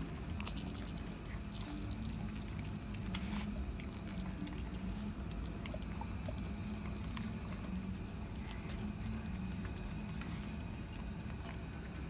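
Kittens eating flaked mackerel from a plate: wet chewing, licking and smacking, with scattered small clicks.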